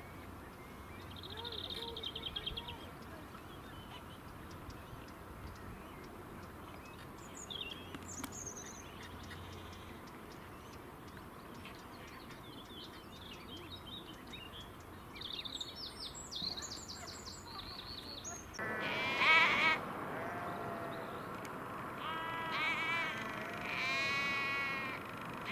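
Waterbird chicks calling: a run of loud, wavering pitched calls in short repeated bouts that starts about two-thirds of the way in. Small birds chirp faintly and briefly before it.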